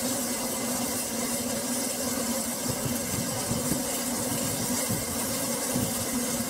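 Double Fairlie steam locomotive standing in steam: a steady hiss with a low hum underneath.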